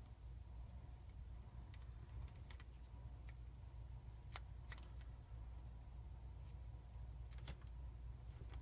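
Small sheet of origami paper being creased and pinched by hand: faint, scattered crisp crackles and rustles of folding paper, the sharpest a little under five seconds in, over a steady low hum.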